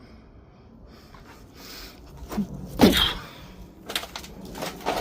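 Knocks and clunks from someone trying to get into an old abandoned car, handling its door and bodywork, with a short vocal sound of effort in the middle, the loudest moment.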